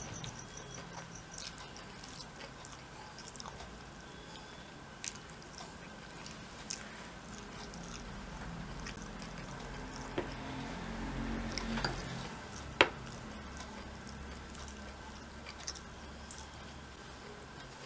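A person eating rice and chicken curry by hand: chewing and wet squishing of the food, with a few sharp clicks, the loudest about two-thirds of the way through.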